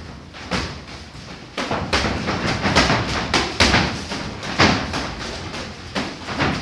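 Boxing gloves landing in a close sparring exchange: an irregular run of sharp thuds and slaps, several a second, heaviest from about two seconds in.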